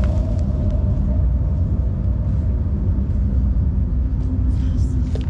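A steady low rumble, loud and unchanging.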